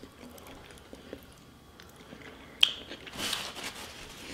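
Mouth sounds of someone eating sauce-covered seafood boil: quiet chewing, with a sharp click a little past halfway and a brief hissing noise just after it.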